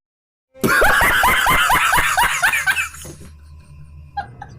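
A burst of loud, rapid laughter starting about half a second in, a quick run of high cackles that fades after about two and a half seconds. A few short, quieter sounds follow near the end.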